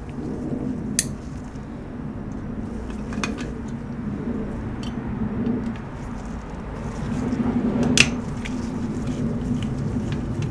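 Hands and a screwdriver working on a cable modem's circuit board and finned metal heatsink: a few sharp metallic clicks and clinks, the loudest about a second in and again near the end, over a steady low hum.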